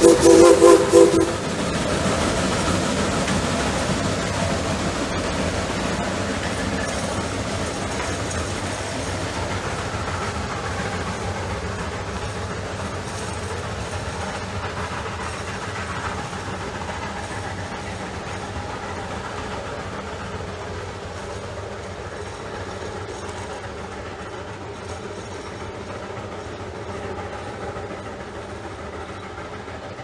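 Shay geared steam locomotive sounds a short whistle blast of about a second, then the train working up the grade fades steadily as it pulls away.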